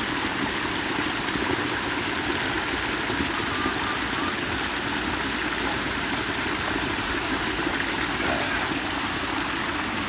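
Shallow stream pouring over a small rock ledge in a little cascade: a steady rush and splash of running water.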